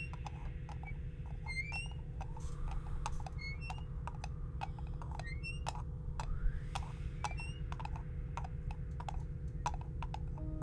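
Hand-made foley of a horse walking through a wooden covered bridge: irregular knocks like hoofbeats, about two to three a second, over a steady low rumble, with short rising chirps and a couple of rising whooshes.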